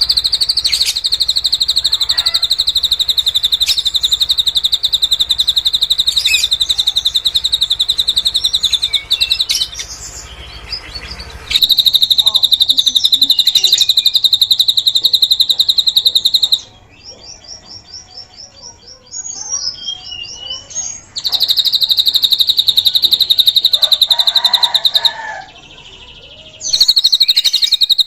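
Drongo (srigunting) singing: long runs of a fast, high trill lasting several seconds each, broken midway by a quieter string of short rising whistles.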